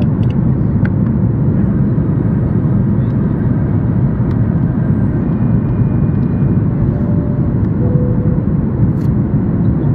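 Steady roar inside the cabin of a Boeing 737-8 MAX airliner in flight: engine and airflow noise, deep and unchanging.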